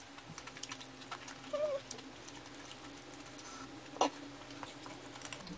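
Quiet eating sounds at a table: chewing and small clicks of chopsticks and a spoon against the dishes, with a brief wavering hum about one and a half seconds in and one sharper clack about four seconds in.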